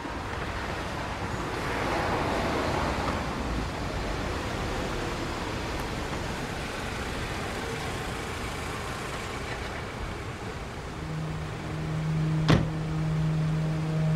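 A car driving past, its engine and tyre noise swelling about two seconds in and slowly fading away. Near the end a low held music tone comes in, with one sharp click.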